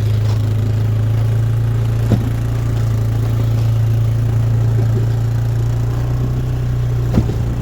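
An engine running steadily at idle, with a light knock about two seconds in and another near the end.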